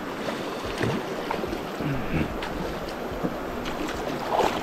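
Steady rush of a fast-flowing river running over rocks.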